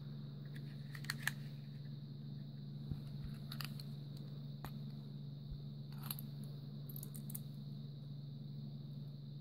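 Light clicks and rattles of a plastic long-reach butane lighter and its small metal parts being handled and taken apart, the loudest a pair of clicks about a second in, over a steady low hum.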